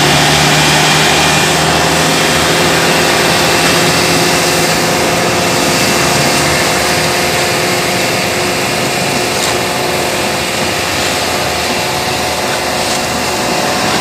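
Asphalt paver's diesel engine running steadily at close range, a dense mechanical hum and hiss. Its deepest tone drops out about six seconds in and the noise eases slightly after that.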